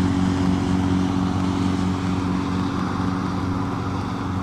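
An engine running steadily at constant speed, giving an even low hum.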